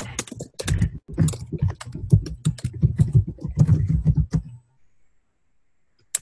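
Rapid typing on a computer keyboard, a quick run of keystroke clicks that stops about four and a half seconds in.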